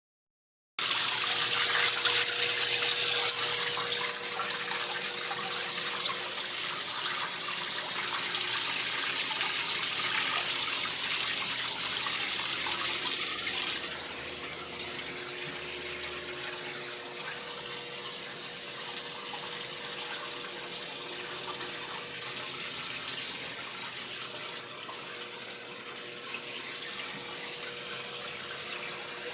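Water running steadily into a Prosdócimo washing machine as it fills. The rush drops noticeably in level about halfway through.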